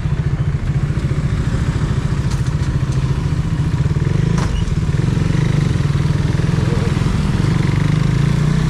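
Motorcycle engine idling while stopped in traffic, then pulling away about halfway through and running a little louder as the bike moves off.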